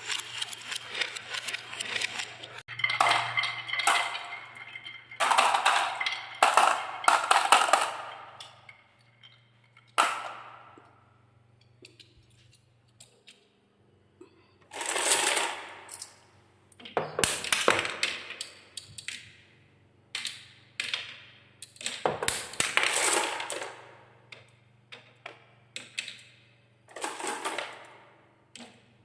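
Marbles rolling and clattering along wooden marble run tracks: bursts of rattling and quick clicks as they drop and knock through the pieces, with short lulls between runs.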